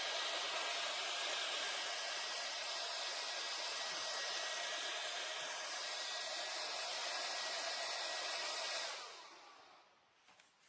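JISULIFE handheld portable fan running with a steady rush of air and a faint motor whine. About nine seconds in it is switched off and winds down over a second.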